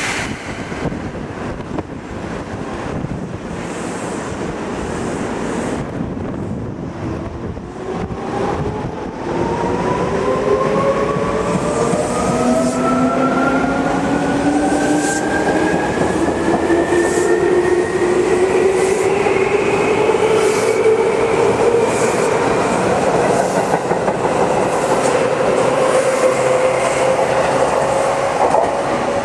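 Seibu 2000 series electric train pulling away: its traction motors whine in several tones that rise steadily in pitch as it gathers speed and then level off. From about halfway in, the wheels click regularly over the rail joints.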